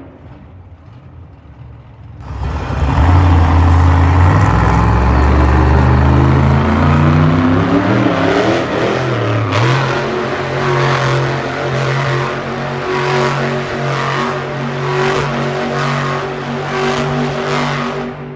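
Monster truck's supercharged V8 coming in loud about two seconds in and revving hard as the truck spins donuts, its pitch rising and falling and its level pulsing about once a second, then dropping away near the end.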